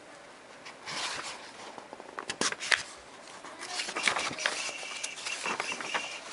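Pages of a soft-cover textbook being turned and handled: paper rustling, with several sharp, crisp snaps as the pages flip over.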